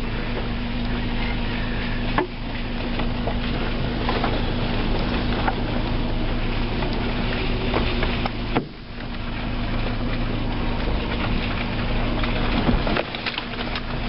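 Cabin sound of a 1998 Kia Sportage's 2.0-litre petrol engine running steadily while the SUV drives over a rough dirt track, with the body knocking and rattling over the bumps: one sharp knock about two seconds in, another past the middle, and a cluster near the end.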